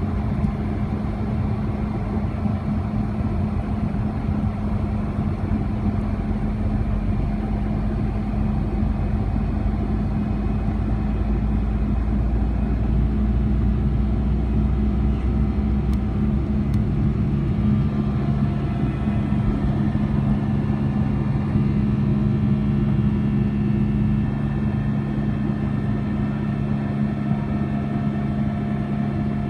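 Boeing 757-200's Pratt & Whitney PW2000-series turbofans at takeoff thrust, heard from inside the cabin over the wing: a steady engine drone with a low hum and a higher whine. A heavy low rumble from the runway roll builds through the first half and fades about two thirds of the way in as the plane lifts off.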